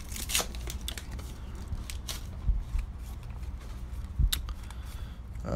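1989 Upper Deck baseball cards being handled and flipped through: scattered light clicks and soft rustling, over a low steady hum.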